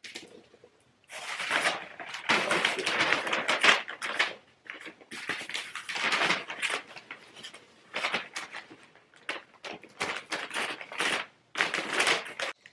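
Wrapping paper crinkling and rustling in irregular bursts as it is folded and pressed by hand around a soft bundle of clothes.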